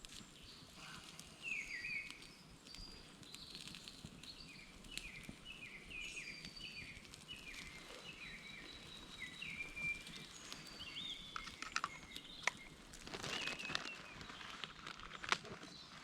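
A small songbird singing, repeating series of short falling chirps, with a few sharp cracks and rustles about three quarters of the way through.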